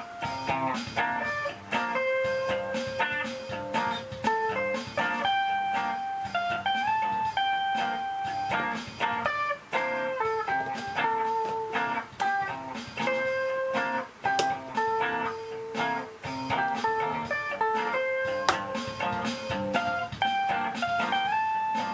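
Background music: a guitar melody of held and sliding notes in a blues style.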